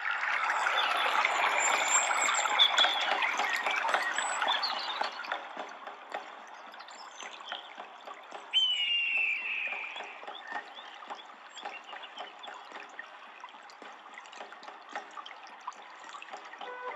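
Trickling, splashing water, louder in the first five seconds, with many small clicks and a short high falling chirp about eight and a half seconds in.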